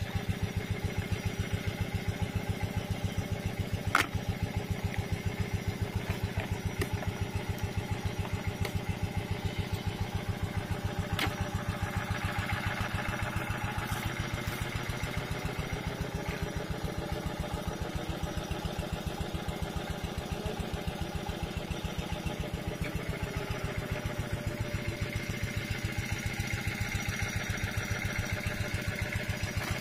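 A small engine idling steadily with an even, rapid putter. A sharp click stands out about four seconds in, and another about eleven seconds in.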